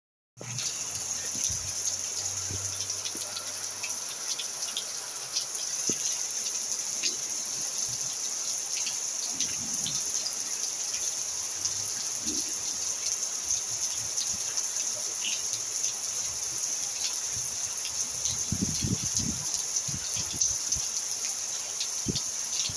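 Steady rain falling on a roof and wet paving: an even hiss with many small drop ticks scattered through it. A few low rumbles come about 18 seconds in.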